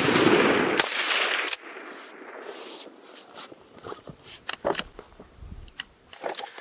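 A single rifle shot from a Schmidt-Rubin G11 firing 7.5x55 Swiss ammunition, its report echoing and dying away over about a second and a half. It is followed by a series of light clicks and knocks.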